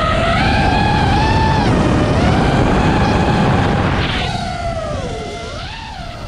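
FPV racing drone's brushless motors whining, the pitch rising and falling as the throttle changes and swooping low near the end, over heavy rushing wind noise.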